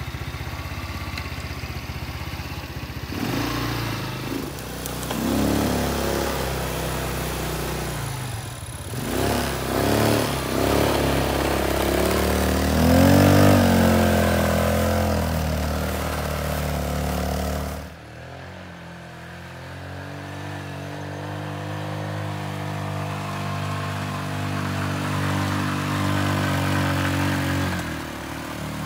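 150 cc Hummer-style ATV's single-cylinder four-stroke engine, with automatic transmission, revving up and down as the quad pulls away and is ridden across snow. About 18 seconds in the sound breaks off abruptly, and the engine then runs more steadily, its pitch slowly rising.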